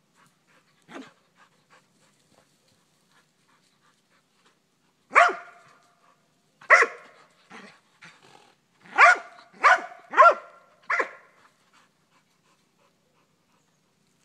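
American pit bull terrier barking: one soft bark about a second in, then a run of about six loud, separate barks from about five seconds in to about eleven, with a few softer ones between. The dog is barking at a pony to bait it into a game of chase.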